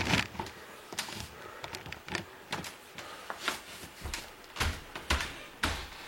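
Scattered knocks and thumps of cardboard moving boxes being shifted and set down, a few heavier thuds among lighter clicks, in an echoing, nearly empty room.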